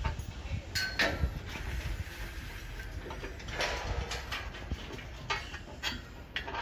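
Scattered metal knocks and scrapes of steel scaffold pipes being handled, over a steady low rumble: a few short clanks about a second in and a cluster near the middle.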